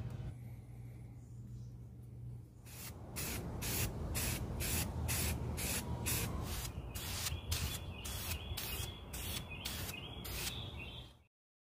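Aerosol spray paint can being shaken, the mixing ball rattling inside in an even rhythm of about two strokes a second to mix the paint before spraying.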